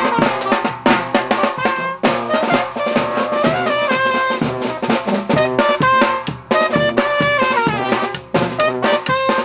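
A small brass band playing, a trumpet melody over a snare drum, a bass drum and a cymbal keeping a steady beat.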